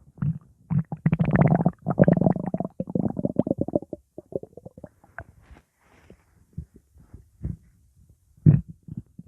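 Stomach growling: a long, gurgling rumble in the first few seconds, then scattered small pops and gurgles, and a short loud gurgle near the end.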